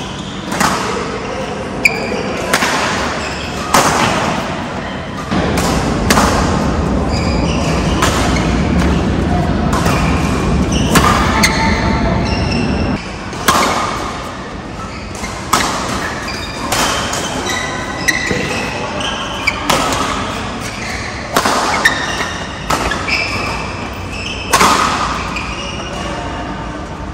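Badminton rally: rackets strike the shuttlecock with sharp cracks, one about every one to two seconds, while voices chatter in the hall.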